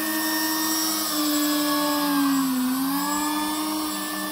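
Electric ducted fans of a radio-controlled Airbus A380 model whining while it taxis through a tight turn, one of the fans broken. Several steady whines at slightly different pitches, dipping in pitch about two and a half seconds in and coming back up as the throttle shifts.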